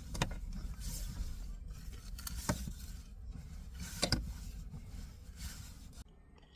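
Outdoor noise with a low rumble of wind on the microphone and a swelling hiss, broken by three sharp clicks or taps; it cuts off suddenly about six seconds in.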